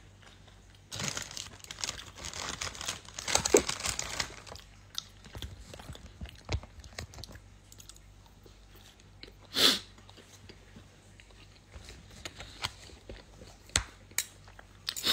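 A person chewing crispy fried food with loud crunching, densest in the first few seconds, then sparser crunches and one short sharp noise about ten seconds in.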